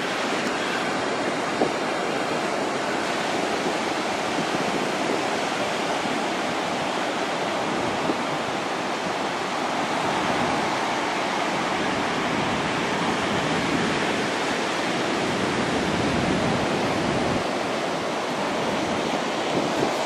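Ocean surf breaking along a beach, a steady rushing noise.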